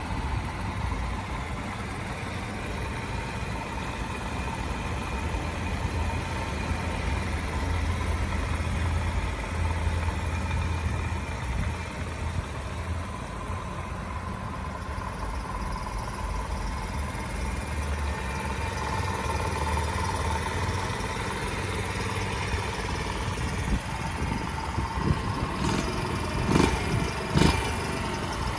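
Honda Z50J Monkey bike's 49 cc four-stroke single-cylinder engine idling steadily in neutral, with a few short louder blips near the end.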